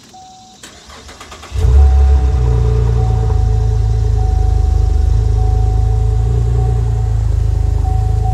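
2011 Chevrolet Camaro's 3.6-litre V6 cold-started on its stock mufflers: the starter cranks briefly, the engine catches about a second and a half in with a short flare in revs, then settles into a steady idle.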